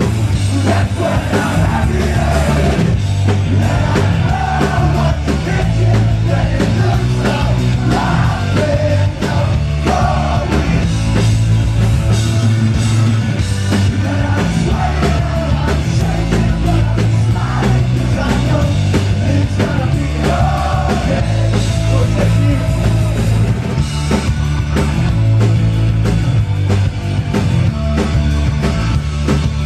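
Live rock band playing loud, with a heavy pulsing bass line, drum kit, electric guitar and a male lead vocal singing over it.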